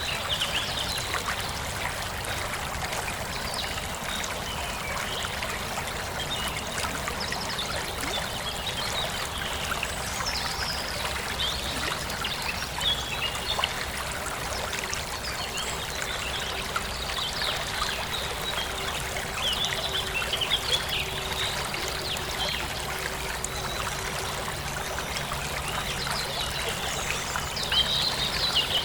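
Water running steadily, like a stream trickling, with small birds chirping over it.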